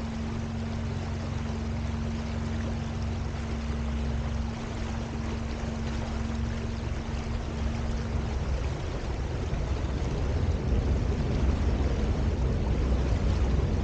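Small electric boat under way on a river: steady rushing water and rumble, with a steady low hum that stops about eight seconds in. The rumble grows louder near the end.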